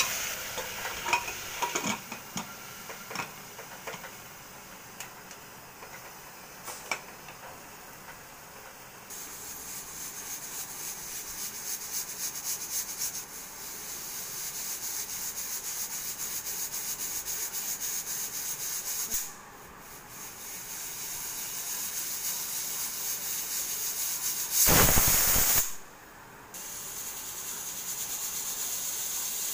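A metal ladle scrapes and clicks against an aluminium pressure cooker as onions are stirred and sizzle in hot oil. The closed pressure cooker then sits on a high gas flame with a steady soft hiss as pressure builds. About 25 seconds in, a loud one-second rush of steam comes: the cooker's whistle going off.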